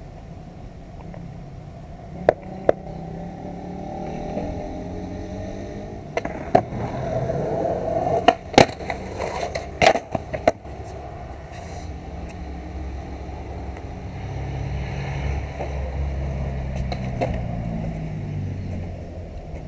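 Skateboard wheels rolling over concrete, the rumble growing louder in the second half, with several sharp clacks of the board hitting the ground between about two and eleven seconds in.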